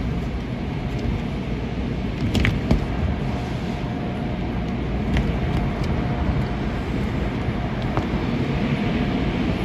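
Automatic car wash heard from inside the car: cloth wash strips and brushes rubbing and slapping over the windshield and body, over a steady rumble of water and wash machinery, with a few sharp taps.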